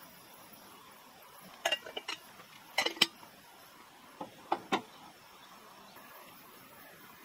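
Vintage Kockums enamel kettle set down on the metal grate of a Coleman 425C two-burner camp stove: a few metal clinks and knocks in three small clusters, the loudest about three seconds in.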